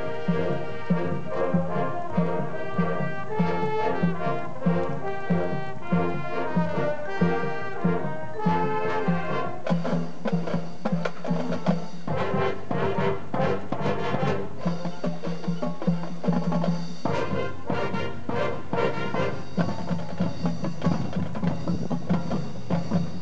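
High school marching band playing its field show: brass section with marching drums and front-ensemble percussion, the drums hitting in a steady rhythm throughout.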